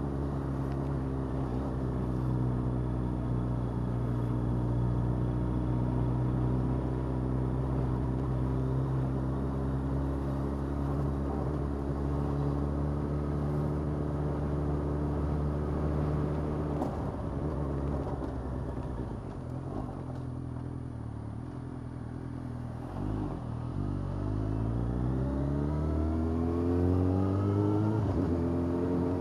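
Yamaha FZ8's inline-four engine running steadily at cruising revs, easing off about two-thirds of the way through, then revving up again with the pitch climbing and a brief break, like a gear change, near the end.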